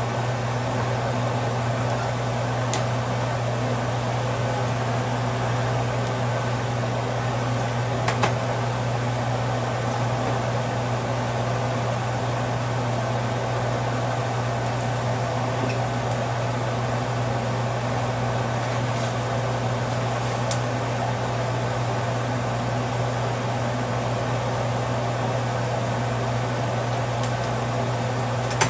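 A steady mechanical hum with an even hiss over it, like a fan running, with a few faint clicks about eight seconds in and again later.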